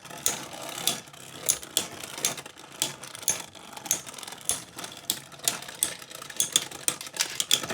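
Beyblade spinning tops clashing against each other and the plastic stadium walls: a rapid, irregular run of sharp clicks and knocks, several a second.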